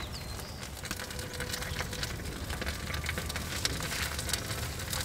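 Spare ribs sizzling and crackling on the hot grate of an offset smoker: a dense, irregular patter of small pops.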